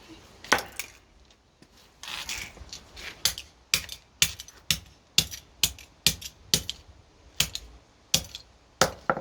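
Claw hammer striking the remains of a phone over and over, sharp knocks at about two blows a second, with a short rattle of debris about two seconds in.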